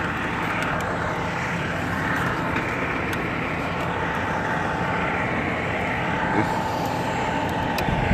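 A vehicle engine idling steadily, a low rumble with a thin steady whine over it.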